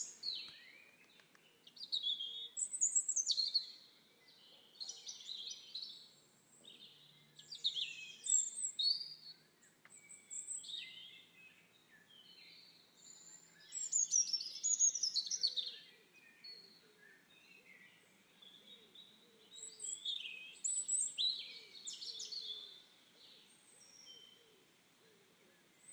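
Wild birds chirping and calling in bouts every few seconds, a jumble of short, high, sliding notes with quieter gaps between them.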